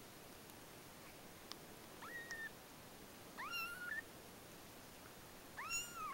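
Newborn kittens mewing: three short, high-pitched cries about two seconds apart, the last one rising and then falling in pitch.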